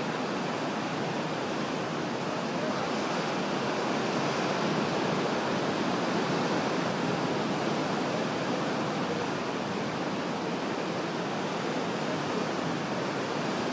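Ocean surf breaking over and around rocks: a steady rush of waves.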